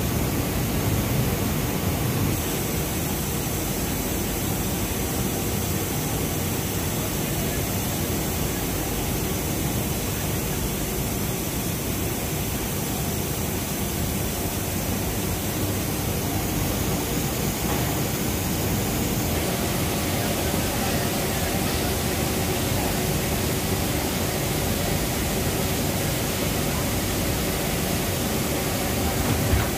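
Steady industrial noise on a yarn-dyeing floor: machinery and ventilation running with a constant hiss and a faint hum.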